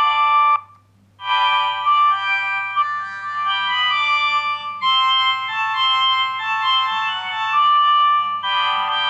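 Siemens C60 mobile phone playing its ringtones through its own speaker: one electronic melody cuts off about half a second in, and after a short pause another begins, a busy run of electronic keyboard-like notes.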